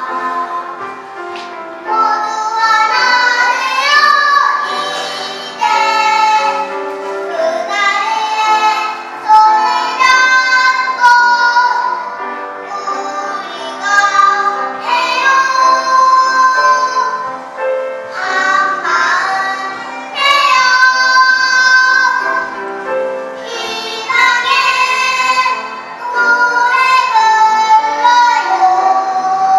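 Children's choir singing a song in unison phrases over a steady accompaniment.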